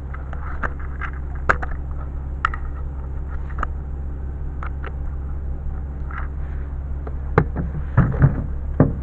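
Cardboard box and packaging being handled and closed up: scattered light knocks and rustles, with a few louder knocks near the end, over a steady low hum.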